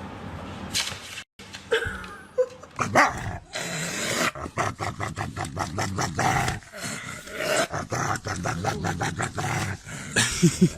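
A dog growling and barking, with quick irregular yips.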